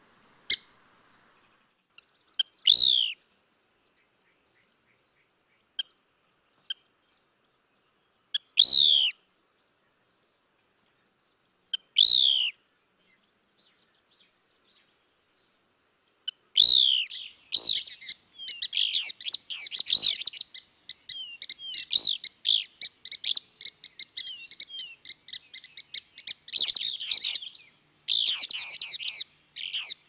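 Bird calls: three separate short calls, each sweeping downward in pitch, a few seconds apart. About halfway through comes a dense, nearly continuous run of rapid chirps and trills.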